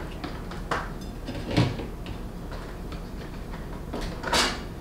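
A few knocks and clunks of a wine bottle being laid in a small refrigerator and the fridge door being handled. The loudest knock comes near the end.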